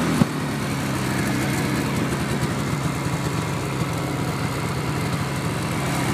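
Snowmobile engine running steadily under way, with one sharp knock just after the start.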